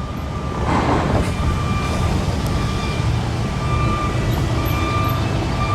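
Backup alarm on construction equipment beeping about once a second over the low rumble of heavy vehicle engines.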